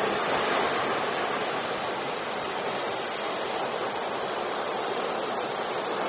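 Ocean surf: waves breaking and washing in as white water, a steady rushing noise that is a little louder right at the start.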